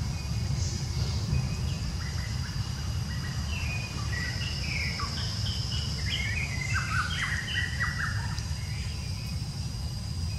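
Outdoor wildlife ambience: a steady high insect drone over a low rumble, with a run of quick, high chirps from about two seconds in until near the end.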